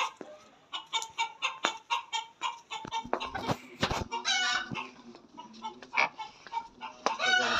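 White desi rooster clucking repeatedly in short calls while held in the hands, with a longer pitched call a little after four seconds and another near the end.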